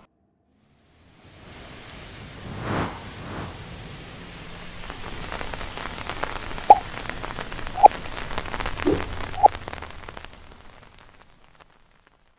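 Rain sound effect: a steady hiss of falling rain that fades in about a second in, swells briefly near three seconds, and fades out near the end, with four short pitched plops in its latter half.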